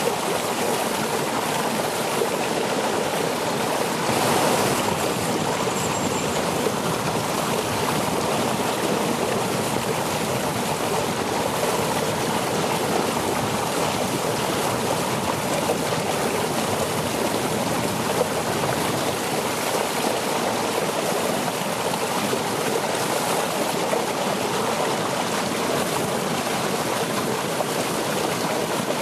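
Shallow stream running over and around rocks: a steady rush and babble of water, swelling briefly about four seconds in.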